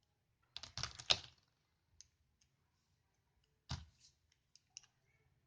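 Small hard plastic parts of a Bandai Bima-X mini action figure clicking as they are handled and pulled apart or snapped together, with a quick run of clicks about a second in and a few single clicks after.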